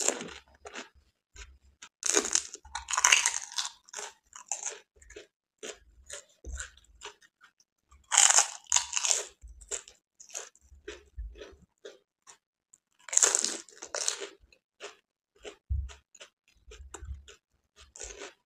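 Close-up mouth sounds of pani puri being eaten: crisp hollow puri shells crunching and being chewed. Three loud bursts of crunching, about 2, 8 and 13 seconds in, with quieter chewing clicks between them.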